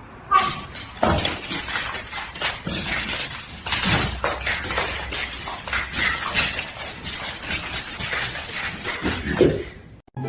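Continuous clattering and clinking of hard objects, many irregular knocks in quick succession, stopping just before the end.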